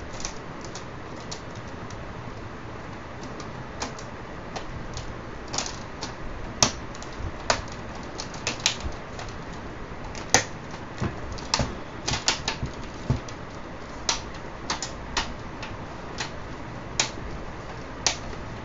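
Irregular sharp plastic clicks and snaps as the plastic LCD bezel of an HP Compaq nx7300 laptop is pressed and snapped into place around the screen, busiest in the middle of the stretch.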